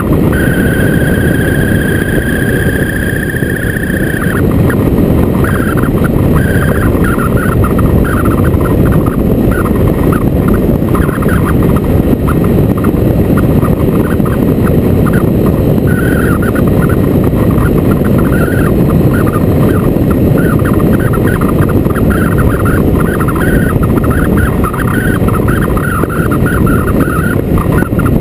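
Heavy wind noise buffeting the microphone on a moving motorcycle. There is a steady high whine for the first four seconds, then a wavering, fluttering high warble.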